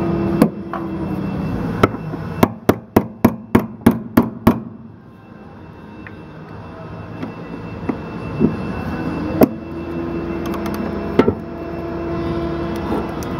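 Hammer blows on metal to shock a stuck bolt loose: a quick run of about eight strikes a couple of seconds in, then a few single blows later. A steady machine hum runs underneath at the start and again near the end.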